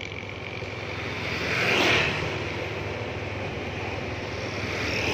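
Steady motorcycle-type engine hum on the move, with passing vehicles swelling up about two seconds in and again near the end.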